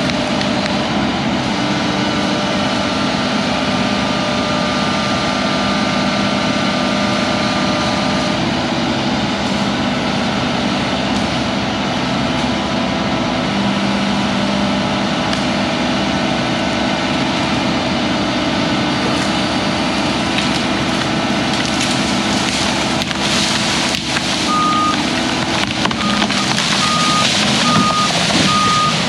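Hyundai HX210AL excavator's diesel engine running steadily under load. In the last few seconds wood cracks and branches snap as a tree is worked, and a high-pitched alarm beeps about once a second near the end.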